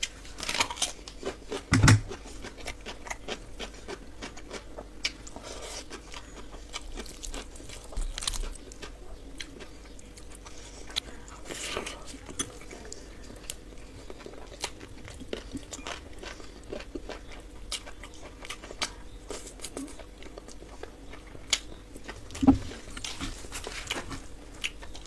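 Close-up eating sounds: crunchy bites of raw onion, wet chewing and the crackle of a hand squeezing rice and curry, with two loud, deep thuds, one about two seconds in and one near the end.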